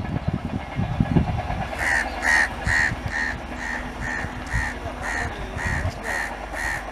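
Low rumble of a departing LHB-coach express train, with a few knocks in the first second or so. From about two seconds in, a bird's harsh call repeats evenly, about two times a second, over the train.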